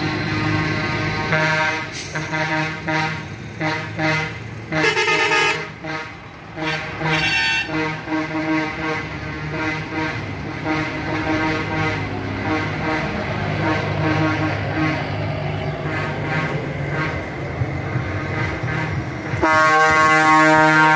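Trucks in a vehicle procession passing and sounding their horns, long held blasts over engine noise. A louder, sustained horn blast starts near the end.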